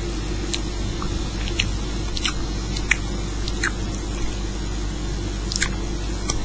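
Steady low hum with about seven light, scattered clicks of fingertips tapping an iPhone's touchscreen.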